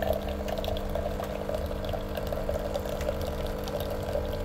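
Capsule coffee machine brewing: its pump hums steadily while a thin stream of coffee pours into a glass mug.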